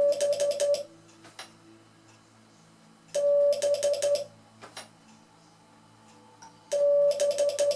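The Morse letter B (dah-di-di-dit) keyed three times on a vertical straight key sounding a practice-oscillator beep, about three seconds apart. Each group is one longer beep and then three short ones, and the key clicks on each stroke.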